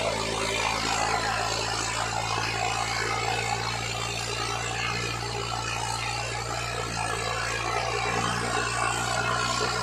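Swaraj 855 FE tractor's three-cylinder diesel engine running steadily under heavy load as it pulls six loaded trolleys, its front wheels lifting off the road.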